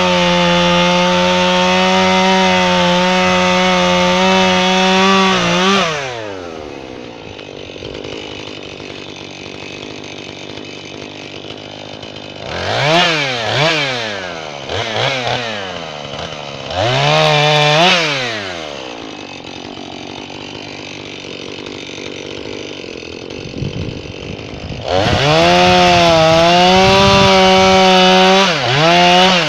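Jonsered 2240 two-stroke chainsaw running at full throttle through red oak, its pitch sagging a little under load, then dropping to idle about six seconds in. It is blipped up and back down twice while idling, and goes back to full throttle for another cut near the end before dropping off again.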